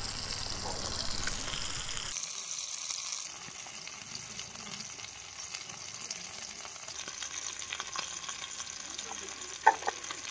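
Fish pieces frying in oil in a pan on a portable canister gas stove, sizzling steadily. The sizzle drops in level about two seconds in, and a single sharp click comes near the end.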